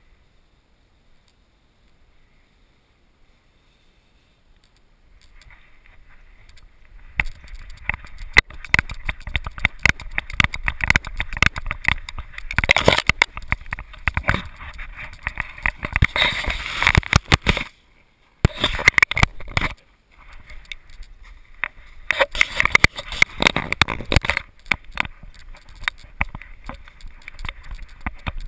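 Handling noise from a camera strapped to a running dog's harness: a rapid, irregular clatter of knocks, scrapes and rubbing as the housing jolts with each stride and fur and brush brush against it. It starts a few seconds in, after a quiet spell, and pauses briefly twice about two-thirds of the way through.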